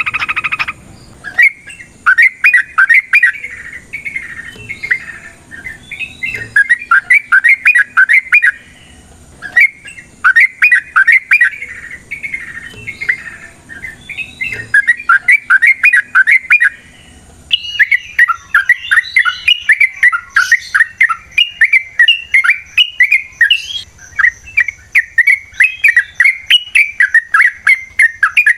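Yellow-vented bulbul (trucukan) singing long, fast runs of bubbling chattering notes, phrase after phrase with only short pauses: the long 'ropel' song used to provoke other bulbuls.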